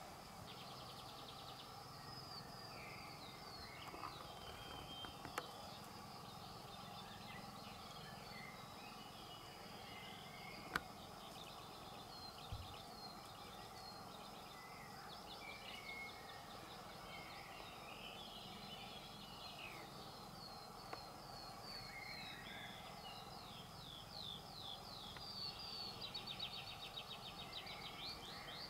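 Several small songbirds chirping and singing in the reeds and trees, building near the end into a rapid trill of quick falling notes, over a faint steady hum. A few sharp clicks break in, the loudest about eleven seconds in.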